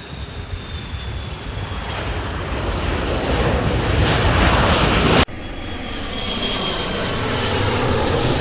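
Jet airliner engines passing low overhead, a rushing noise that builds steadily under a whine slowly falling in pitch. About five seconds in it cuts abruptly to another jet's engine noise with a steady whine.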